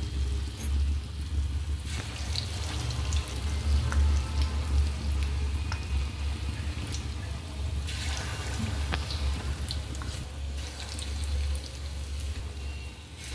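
Batter-coated potato pieces deep-frying in hot oil in a kadhai: steady sizzling with scattered crackles and pops, over a steady low hum.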